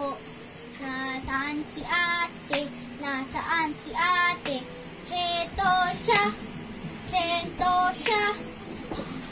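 A young boy singing a song in sung phrases, clapping his hands once about every two seconds between the phrases.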